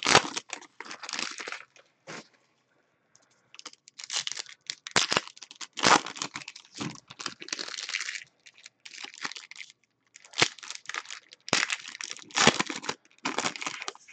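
Foil wrappers of Panini Select football card packs crinkling and tearing as they are opened by hand, in irregular bursts with a short lull about two seconds in.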